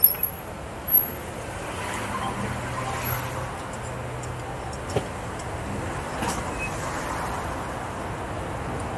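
City street traffic: steady road noise, with a vehicle engine running close by as a low hum for a few seconds. There are sharp knocks, two in the first second and one about five seconds in.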